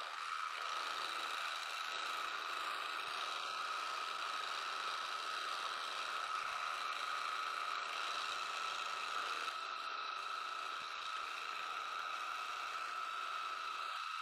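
Slitting saw on a milling machine cutting through half-inch-thick plate in a single pass at about 600 RPM under coolant: a steady whine with the spindle running.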